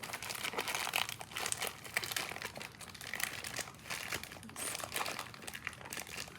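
Irregular crinkling and rustling of a carry case being handled and opened, with scattered small clicks and knocks.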